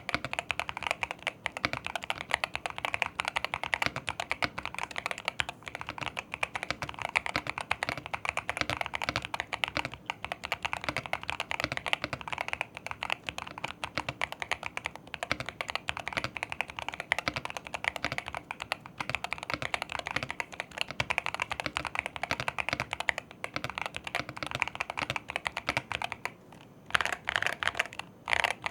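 Eweadn Deep68 65% Hall Effect (magnetic-switch) mechanical keyboard being typed on fast, a dense run of key clicks and bottom-outs, with a brief lull near the end.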